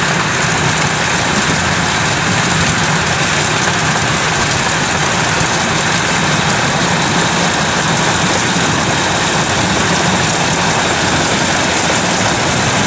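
Kubota DC105X combine harvester running steadily as it cuts ripe rice: its diesel engine and threshing machinery make a continuous, even mechanical noise with a low hum underneath.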